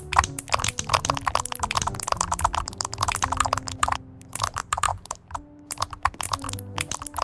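Typing on a computer keyboard: a fast, uneven run of key clicks, with two short pauses midway. Soft background music plays underneath.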